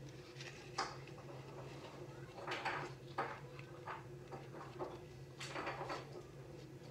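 Hands handling craft-foam flower petals and a wire stem: a few soft rustles and light clicks, about a second in, around the middle and again past five seconds, over a steady low hum.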